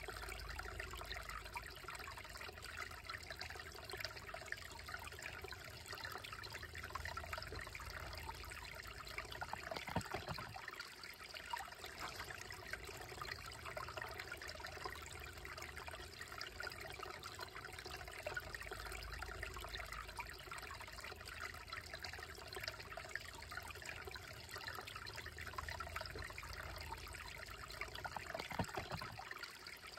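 Shallow, slow-moving woodland creek trickling steadily over rocks and a small cascade between boulders.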